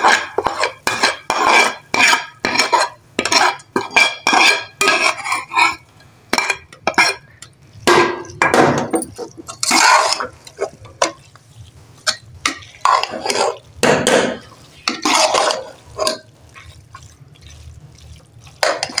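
Metal spoon scraping and knocking in a metal pot, stirring fried masala into boiled split urad dal: quick strokes about two a second at first, then slower, longer sweeps.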